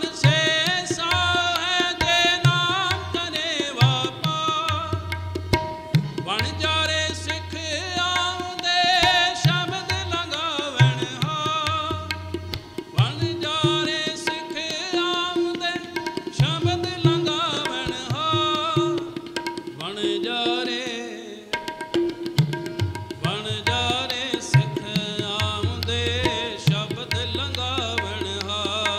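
Music: tabla drumming with deep bass strokes under a wavering, ornamented melody.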